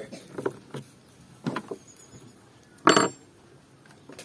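A few short knocks and clinks of hard parts being handled, the loudest a sharp clack about three seconds in.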